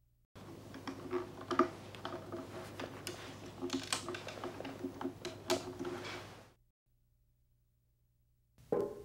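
Noh taiko, a stick-beaten drum on a stand, struck in a quick, dense run of sharp strokes with a ringing, pitched body; the playing stops abruptly about two-thirds of the way through.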